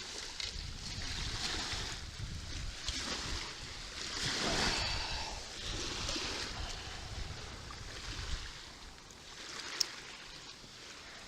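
Wind buffeting the microphone over small waves washing on a river beach, swelling and easing. One sharp click near the end.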